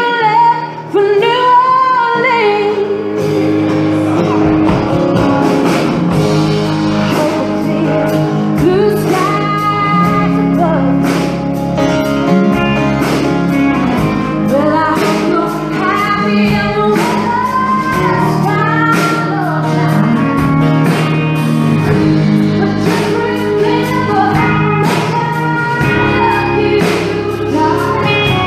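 A woman singing lead with a live band, backed by acoustic guitar, electric guitar and drums keeping a steady beat.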